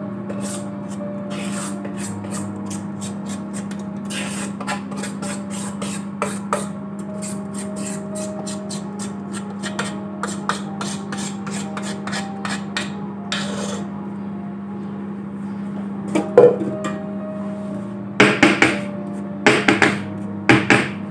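Cake batter being scraped out of a steel mixing bowl into a round aluminium cake tin: many quick scraping and clicking strokes. Near the end the tin is knocked down on the counter several times, with louder knocks.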